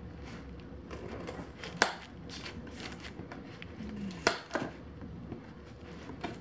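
Scissors cutting the packing tape on a cardboard shipping box, with the box being handled: a few sharp snips and clicks, one about two seconds in and two close together a little after four seconds.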